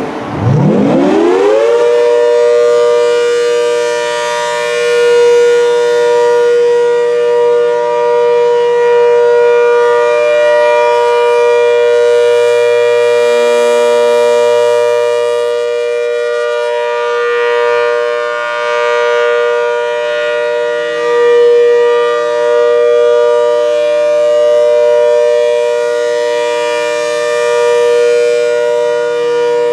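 ACA Hurricane 130 MKII civil defense siren winding up in about two seconds to a steady, two-note chord and holding it, its loudness swelling and fading every several seconds. This is the steady Alert signal of a siren test.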